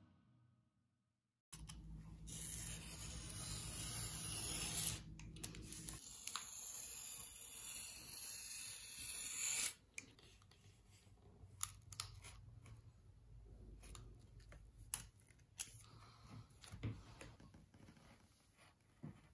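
Craft knife cutting paper pattern pieces along a steel ruler and on a cutting mat. A long, louder scratchy stretch of cutting follows a short silence at the start, then quieter scratches with small clicks.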